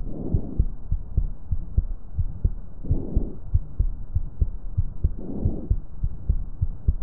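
Stethoscope recording of normal vesicular breath sounds over a healthy lung: three soft swells of rushing air, one on each inspiration, with expiration silent between them, typical of vesicular breathing. Heartbeats thud low underneath throughout.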